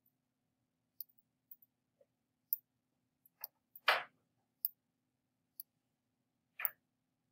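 Computer mouse buttons clicking, scattered single clicks about once a second, the loudest about four seconds in and another near the end, over a faint steady hum.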